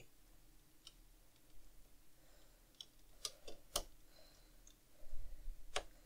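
Hand screwdriver slowly driving a small metal screw into a scale model's door fascia trim: faint, scattered sharp clicks of the driver tip and screw, the loudest a little before four seconds in and again near the end.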